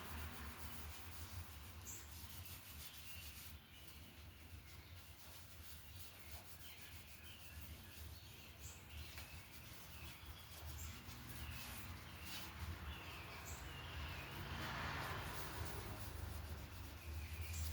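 Faint rubbing of an oil finish being spread over the turned camphor-wood pot, swelling into a longer wiping stroke near the end. Birds chirp faintly in the background over a low steady hum.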